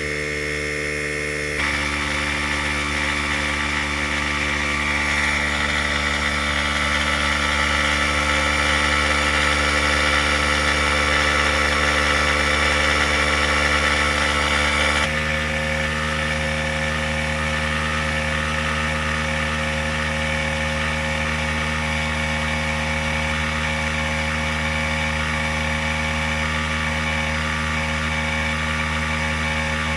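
Mastercraft 2-gallon electric air compressor running steadily, its motor and pump filling the tank as pressure builds toward a cut-out reset to about 120 psi. The sound's tone shifts abruptly about halfway through.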